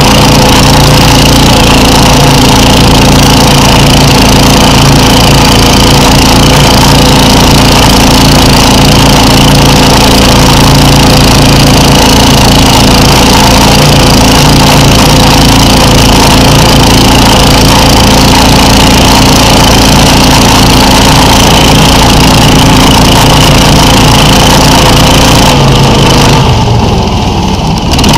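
SnowDog tracked snow machine's engine running under way across snow, a loud, steady drone. It eases off near the end.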